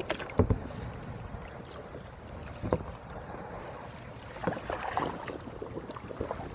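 Kayak paddling: paddle strokes splashing in the water, with several short knocks, the loudest just under half a second in, over a steady rumble of wind on the microphone.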